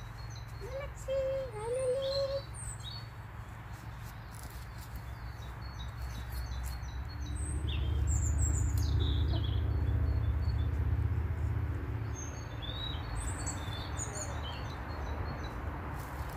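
Small birds chirping in short, high calls throughout. A lower wavering note comes in the first two seconds. A low rumble swells up in the middle for a few seconds and fades again.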